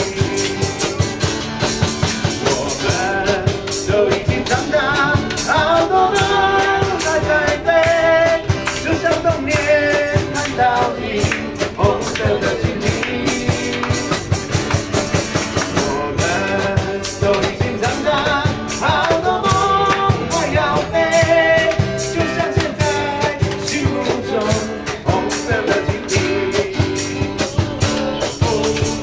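Live song: a man singing into a microphone over a strummed acoustic guitar, with an electric bass playing along, in a steady driving rhythm.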